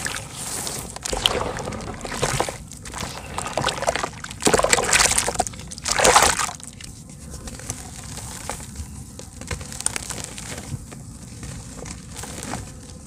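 Hands sloshing and churning muddy red-dirt water in a plastic tub, loudest about four to six seconds in. Then quieter, with scattered small crackles as a dry slab of soft dirt is held in the water and crumbles.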